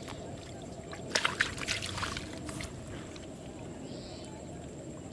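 Water splashing and sloshing in a short cluster of sharp strokes between about one and three seconds in.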